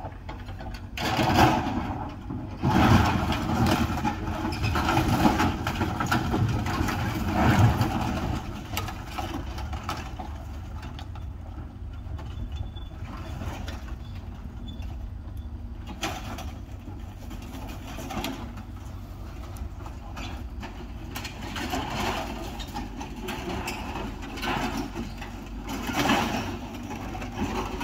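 Excavator demolishing a building: its engine runs throughout, with loud crashing and crunching of metal sheeting and wood debris during the first eight seconds or so. After that the engine runs more steadily and quietly, with occasional clatter and a louder burst near the end.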